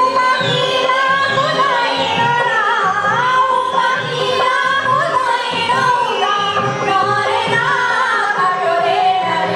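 Live folk song: women singing a wavering melody into microphones, accompanied by a harmonium and a dholak drum keeping a steady beat.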